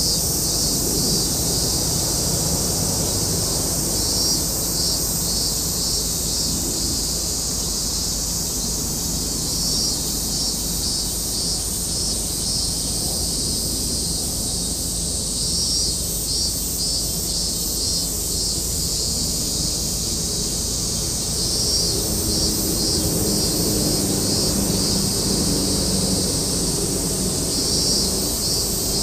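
Outdoor ambience: a steady low rumble with insects chirping high in repeated bursts of rapid pulses, each burst lasting a few seconds. A faint low hum, like a distant engine, joins about three-quarters of the way in.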